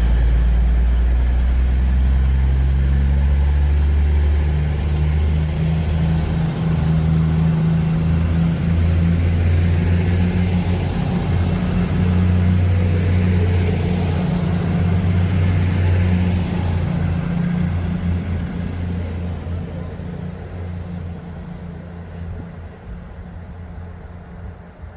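East Midlands Railway Class 222 Meridian diesel multiple unit pulling out of the station, its diesel engines running loud and steady, then fading away over the last several seconds as it leaves. A thin high whine joins about halfway through, with a couple of brief clicks earlier.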